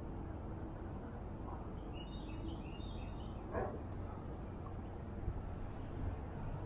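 Steady rushing of water over a creek spillway, with a bird chirping several times about two to three seconds in.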